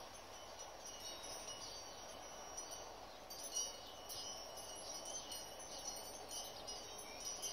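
Faint, high, tinkling chime-like tones, scattered and more frequent in the second half, over a steady low background hiss.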